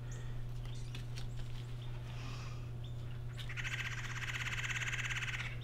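A songbird's rapid, even trill lasting about two seconds in the second half, after a few faint short chirps; a steady low hum runs underneath.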